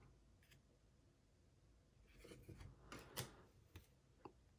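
Faint sliding and ticking of trading cards being flipped through by hand, mostly in the second half.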